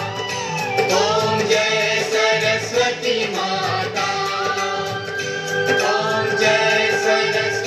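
Music: a song with voices singing long held notes over instrumental backing.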